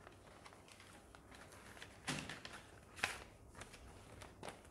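Faint rustling and clicks of paper ballots being handled during a hand vote count, with a few louder short rustles about two, three and four and a half seconds in.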